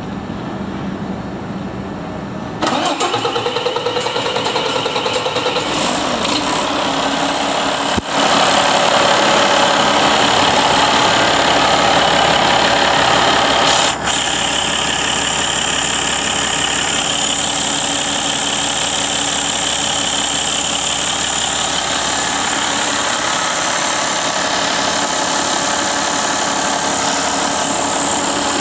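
Mercedes OM471 inline-six diesel engine starting up about two and a half seconds in, then running with a rapid, even pulse. About eight seconds in it gets louder as it picks up speed, then runs steadily.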